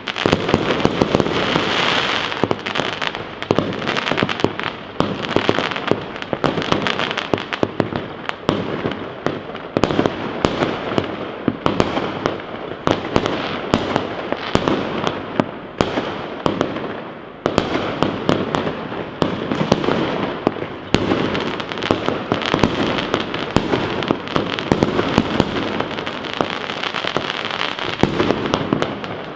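Fireworks display: rockets going up and shells bursting in a rapid, continuous barrage of bangs and crackling, with no pause.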